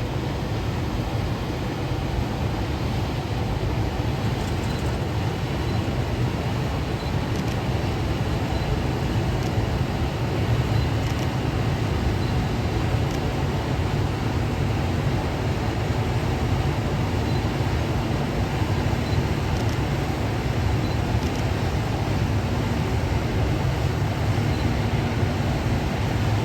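Steady low vehicle rumble that holds an even level throughout, with no rise or fall.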